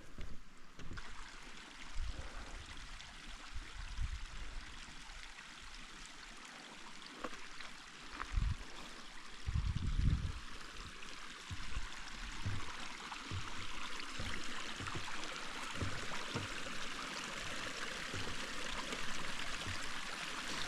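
Mountain stream running steadily, growing louder toward the end, with a few low thumps on the microphone.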